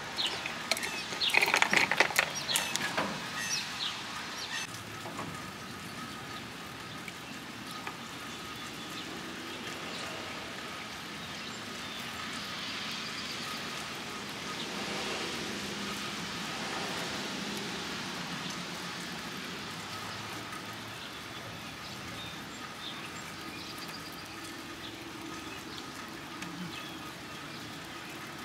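A grey squirrel rummaging in a bowl of shelled nuts, a cluster of clicks and clatters over the first few seconds. After that comes the steady hiss of traffic on a wet street, swelling and fading in the middle.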